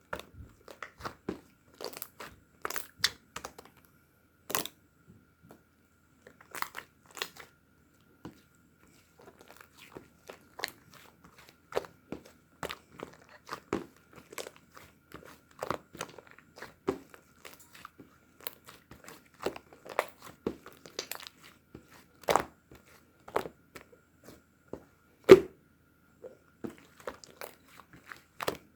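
Hands squeezing and poking slime, giving irregular sharp pops and crackles of trapped air with short quiet gaps between; the loudest pop comes near the end.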